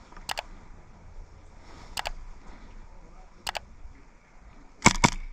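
Airsoft gun fired as four single shots, spaced a second and a half to two seconds apart. Each shot is a sharp double click, and the last is the loudest.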